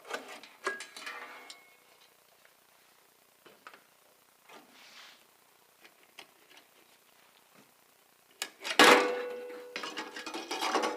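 Metal draw-latch duct clamps being unlatched: clicks and metallic clinks at the start and a few faint clicks after. About two seconds from the end comes a louder metal clatter with a brief ringing tone.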